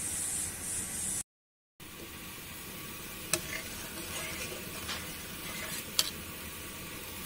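Pot of kheer, rice and milk, simmering with a steady hiss. After a brief dropout about a second in, a steel spoon stirs through it, knocking sharply against the side of the metal pot three times.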